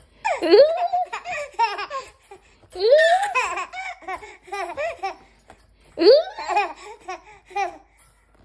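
Seven-month-old baby laughing in three bouts, each opening with a rising squeal and breaking into quick repeated giggles.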